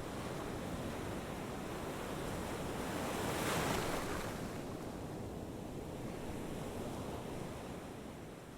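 A steady rushing noise that swells once near the middle and fades out at the end.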